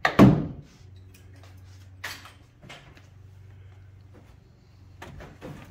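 A pickup's fuel door shut with one loud thump, followed by a steady low hum and scattered knocks and creaks as a man climbs onto the rear tire and bed side of the truck.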